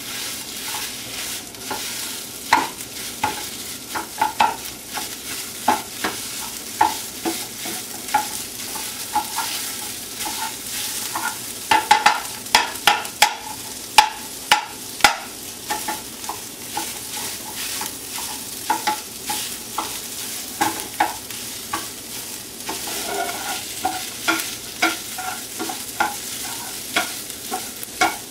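Sausage sizzling as it browns in a nonstick frying pan, with a meat chopper tool repeatedly tapping and scraping against the pan to break up the meat. The taps come thickest about twelve to fifteen seconds in.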